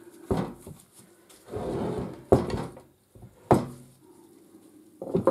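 Hammer tapping on the metal parts of an old wood mitre trimmer to separate them off their alignment pins: a few sharp knocks, with a short scraping rub of metal about one and a half seconds in.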